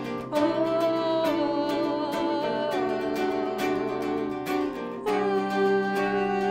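Acoustic guitar and electric guitar playing a slow Brazilian popular song, plucked chords under a melody held in long, slightly wavering notes, with a change of chord about five seconds in.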